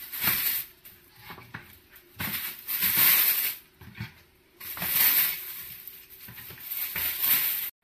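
Thin plastic bag crinkling and rustling as zucchini slices are dropped into it and it is handled, in three bursts, the last and longest running until a sudden cut near the end.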